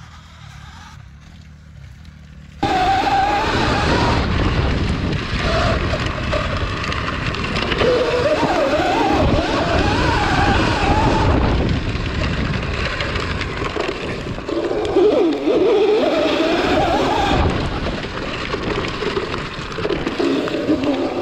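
Sur-Ron electric dirt bike, a 72-volt build, ridden hard, heard from a camera mounted on the bike: loud wind rush and the rear tyre churning through dirt, with a whine that rises and falls as the rider works the throttle. The first couple of seconds are faint and distant, then about two and a half seconds in the sound jumps to the loud close-up riding noise.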